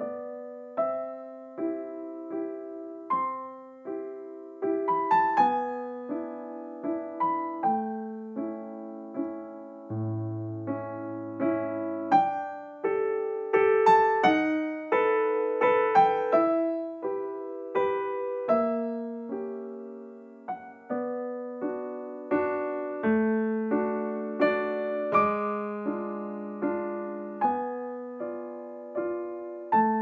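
Background piano music: a slow melody of single struck notes that ring and fade.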